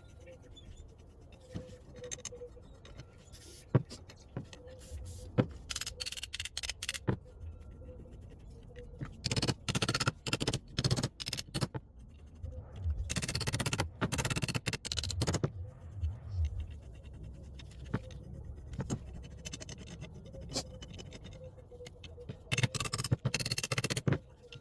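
Scattered sharp clicks and several bursts of scraping, each a second or two long, from hands and tools working on a vintage Coes monkey wrench.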